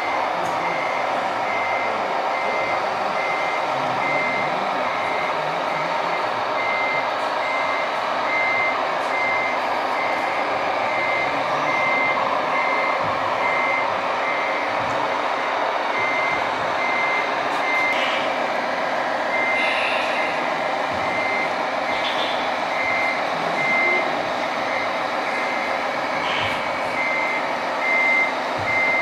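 Sound module of a radio-controlled MAN truck model playing an even series of electronic reversing beeps over a steady simulated diesel engine hum, the beeping pausing briefly once or twice.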